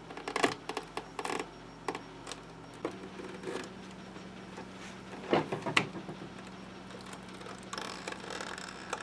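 Handling noise of a Philips 22HR541 speaker's rear amplifier panel being worked loose and pulled out of its wooden cabinet: scattered knocks, clicks and scrapes, the loudest knocks about five to six seconds in and a rustle near the end. A low steady hum comes in about three seconds in.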